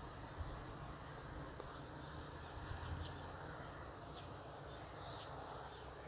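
Faint natural ambience: insects chirring faintly and steadily over a low rumble, with a few faint short chirps about halfway through and later.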